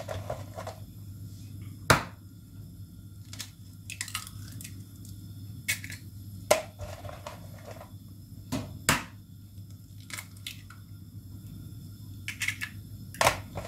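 About a dozen sharp clicks and knocks at irregular intervals, from eggs and kitchen utensils being handled on a counter while scrambled eggs are made, over a steady low hum.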